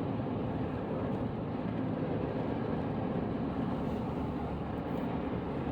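Steady road noise from a car driving along: tyre and engine rumble with no change in pace.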